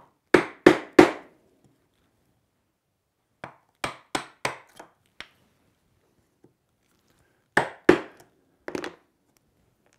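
Wooden mallet striking the handle of a socket chisel, chopping waste from between dovetail pins in a mahogany board. Three hard blows, then about five lighter taps, then three more blows near the end.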